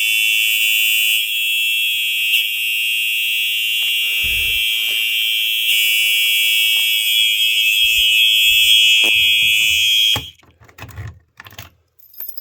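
Simplex 4903 fire alarm horn sounding a steady, continuous high electronic tone, dipping slightly in loudness about a second in and coming back up around six seconds. It cuts off suddenly about ten seconds in, followed by a few soft thumps.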